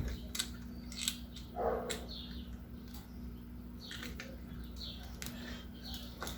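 Screwdriver and switch-removal work at a wall switch box: several short sharp clicks and scrapes, with a few brief squeaks, over a steady low hum.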